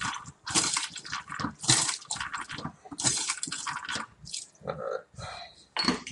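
Hand-pumped bottle rinser squirting cleaning solution up into an upturned glass beer bottle, a splashing hiss with each press, repeated about once a second and weakening in the second half.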